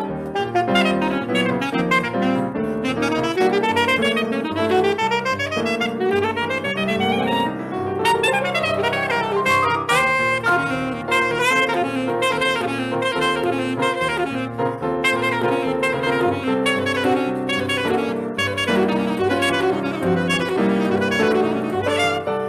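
Saxophone playing fast melodic runs that climb and fall, over piano accompaniment, in a live performance of Brazilian instrumental music.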